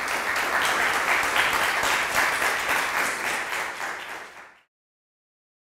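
Audience applauding, many hands clapping at once; the applause eases off slightly and then cuts off abruptly about four and a half seconds in.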